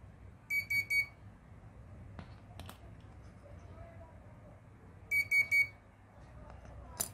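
Piezo buzzer on an RFID door-lock circuit giving three short high beeps, then another three beeps about five seconds later, with a few sharp clicks in between and one near the end.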